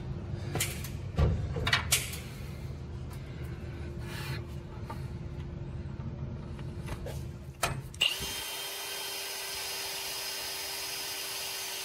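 Power drill running with a 3/16-inch bit, drilling out a broken-off bolt in an engine's cylinder head, with a few sharp knocks in the first two seconds. About eight seconds in the sound changes abruptly to a steady, hissier whine.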